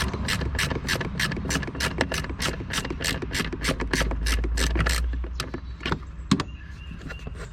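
Socket ratchet wrench clicking in quick, even strokes, about four clicks a second, as a bolt is backed out. The steady clicking stops about five seconds in, leaving a few single clicks.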